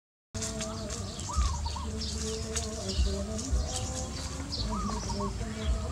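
Birds chirping with many short, high calls, along with a few dull low thumps.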